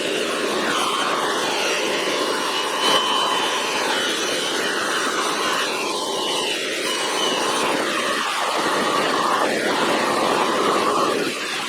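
Bench polisher running with a steel adjustable wrench pressed against its big buffing wheel. It makes a steady motor whine and rasp whose tone shifts now and then as the wrench is moved across the wheel.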